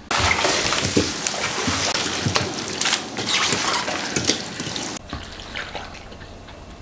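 Water splashing and pouring, with wet, clicking handling of radishes in kimchi-making. It is loud for about five seconds, then drops suddenly to a quieter pour of water into an earthenware crock of radishes.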